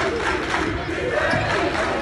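Basketball crowd shouting and cheering, many voices at once.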